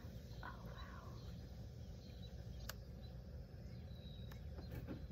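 Faint outdoor evening ambience: insects and a short bird chirp about half a second in, over a steady low rumble.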